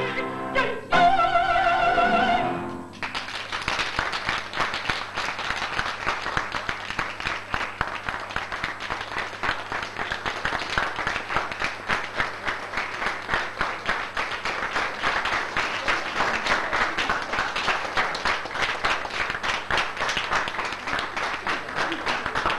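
A woman's operatic voice holds a final sung note with vibrato, ending about three seconds in. The audience then applauds steadily.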